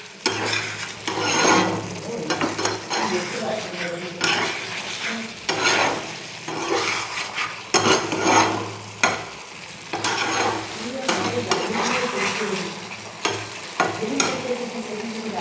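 Chicken frying and sizzling in hot oil, with a utensil stirring and scraping in the pan in irregular strokes.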